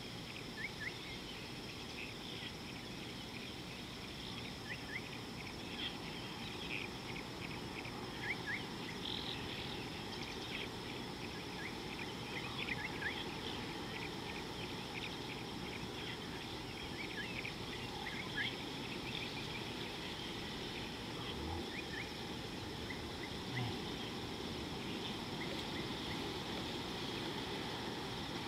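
Outdoor riverside ambience: a steady high drone of insects, with many short bird chirps scattered throughout over a low, even rushing background.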